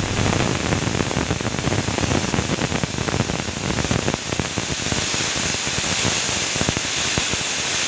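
Pressure cooker whistling: steam blasting out under its weight valve in a loud, steady hiss with a fast sputtering crackle, the cooker venting at full pressure.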